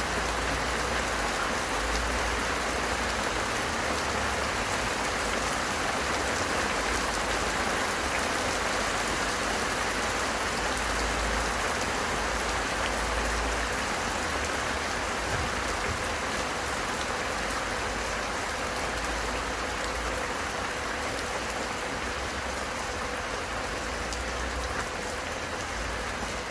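Steady rain falling, a dense even hiss that eases slightly toward the end.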